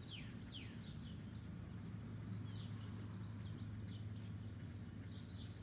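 Small birds chirping: a quick run of high falling chirps in the first second, then scattered short chirps, over a steady low hum.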